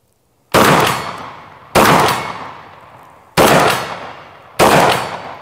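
Four shots from a Fostech Origin 12 SBV, a gas-operated semi-automatic 12-gauge, fired at a steady pace a little over a second apart, each followed by a trailing echo.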